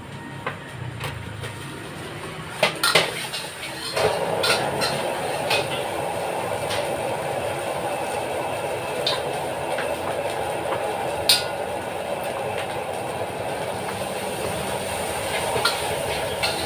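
A gas wok burner running at high flame with rice frying in a steel wok: a steady rush that sets in suddenly about four seconds in. Sharp clinks of a metal spatula against the wok come now and then.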